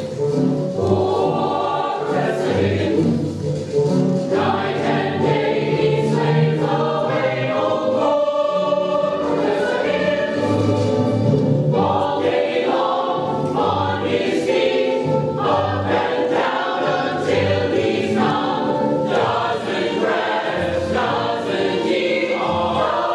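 A chorus of voices singing a musical-theatre number with musical accompaniment.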